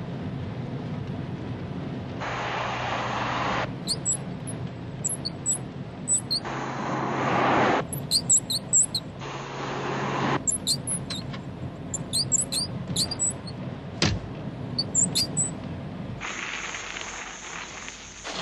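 Clusters of short, very high-pitched squeaks, several a second, over the steady running and road noise of a Volkswagen Golf GTI Mk2. The background noise changes abruptly several times.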